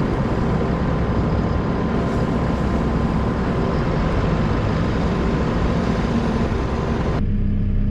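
Farm machinery running with a loud, steady rushing noise that starts and cuts off abruptly.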